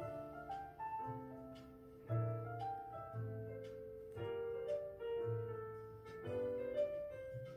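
Background piano music: a light melody of single notes over steady bass notes.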